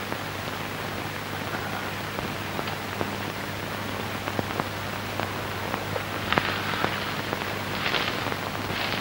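Steady rain-like hiss with scattered faint crackles over a low hum.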